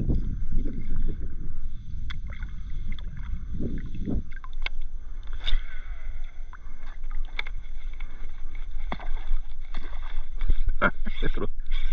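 Hidro2Eko Tuna 115 plastic kayak on the water: water lapping and splashing at the hull under the paddle, with scattered small knocks on the hull and gear. A low rumble fills the first few seconds.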